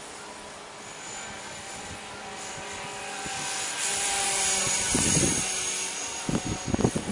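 Blade 300X electric RC helicopter in flight, its motor and rotor giving a steady whine of several tones over a rotor hiss. The whine grows louder through the middle as the helicopter comes closer. Near the end, gusts of wind buffet the microphone.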